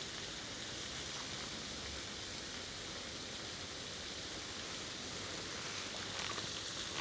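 Steady outdoor background noise: an even hiss with no distinct sounds in it.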